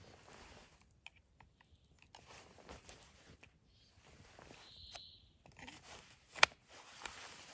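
Knife blade slid into a molded plastic belt sheath, seating with one sharp click about six seconds in. Soft rustling of clothing and a few small clicks come before it.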